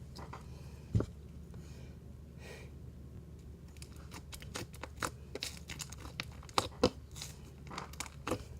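Slime being squished and played with by hand: scattered sticky clicks and crackling pops, coming thicker in the second half. There is a single thump about a second in.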